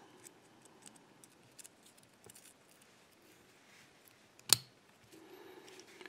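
Small metal parts of an ABUS dial combination padlock being fitted by hand into its body: faint light clicks and scrapes, with one sharp metallic click about four and a half seconds in.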